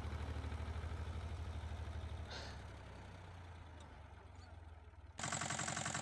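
Small tractor engine running under load as it pulls a fan-type potato digger through the soil, with a steady low pulse that fades after about two seconds. About five seconds in, it cuts abruptly to a walk-behind tractor's engine running louder with a fast, even pulse.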